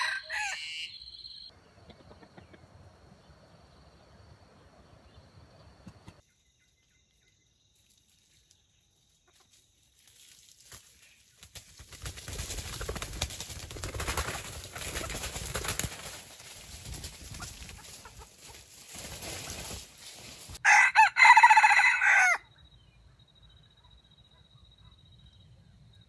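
Wild junglefowl rooster crowing: the tail of one crow at the very start, then one loud, short crow about 21 seconds in, the loudest sound. Between the crows, a few seconds of near silence followed by a long stretch of rustling noise.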